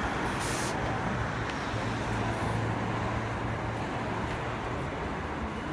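City street traffic: vehicles passing, a steady low rumble with a low engine hum swelling in the middle, and a brief hiss just after the start.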